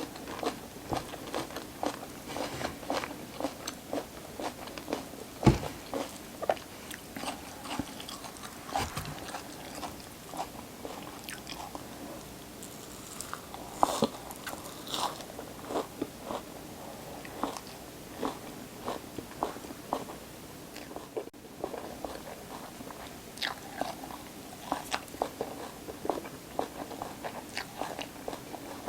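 Close-miked crunching and chewing of crisp raw vegetables, a steady run of wet, crackly bites and chews with two louder crunching bites about five and fourteen seconds in.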